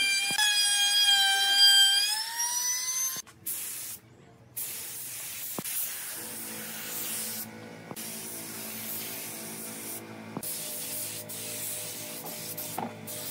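A handheld trim router whines at a high, steady pitch as it routes the edge of a wooden tabletop; its pitch rises just before it cuts off about three seconds in. After a brief silence, a spray gun hisses as it sprays finish over the wood, with soft background music underneath.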